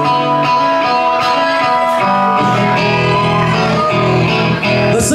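Live rock band playing an instrumental intro on electric guitars and drums, with lower bass notes joining about halfway through.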